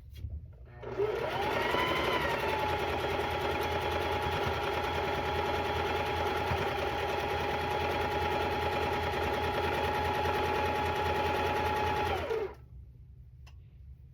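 Electric sewing machine stitching a long quilt seam: the motor spins up with a rising whine about a second in, runs at a steady speed, then winds down and stops near the end.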